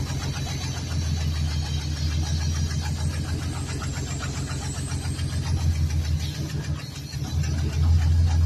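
Pickup truck engine running at a steady idle while Seafoam is drawn in through the brake booster vacuum hose to clean carbon from the top end. About seven seconds in the engine dips briefly, then runs louder.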